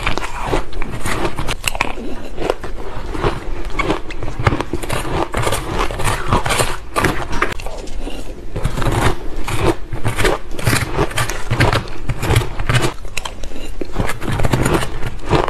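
Close-miked chewing of soft, powdery crushed ice: a rapid, continuous crunching, with a metal spoon scraping and scooping the ice in the silicone bowl.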